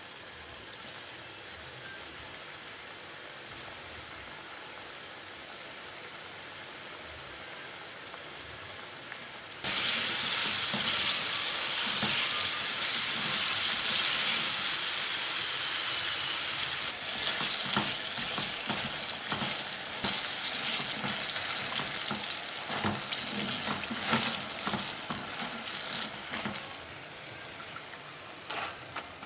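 Chicken fillets frying in hot oil. A quieter sizzle turns suddenly much louder about ten seconds in. Later scattered clicks and knocks come through the sizzle, which dies down again near the end.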